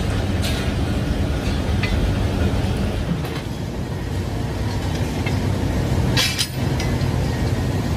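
Steady low rumble of factory machinery, with a few clinks and clanks of steel spring leaves being handled on a leaf-spring stack; the loudest clank comes about six seconds in.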